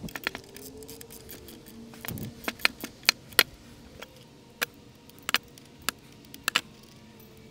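Small metal clicks and clinks of a wrench tightening the bevel-lock bolts at the back of a miter saw, in irregular sharp clicks coming in small clusters.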